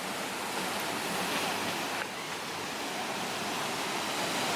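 A small waterfall: a steady, even rush of falling water.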